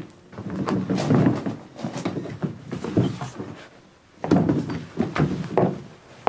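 A wheelbarrow pushed over loose gravel, with footsteps crunching on the gravel and irregular knocks from the barrow, in a small stone-walled basement. The crunching eases off for a moment partway through, then picks up again.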